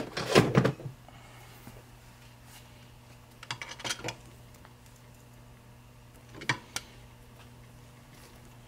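Short metallic clinks and taps from the tab lock washer, nut and hand tool on a tractor's pinion shaft being handled in a vise. They come in a few clusters: a loud run in the first second, another about three and a half to four seconds in, and two single clicks around six and a half seconds. A faint steady low hum sits underneath.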